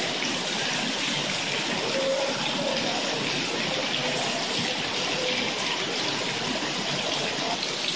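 Heavy rain mixed with hail pouring down steadily, an even dense hiss that does not let up.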